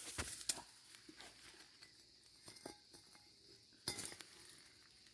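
Scattered light clicks and clinks, with a cluster at the start and another about four seconds in.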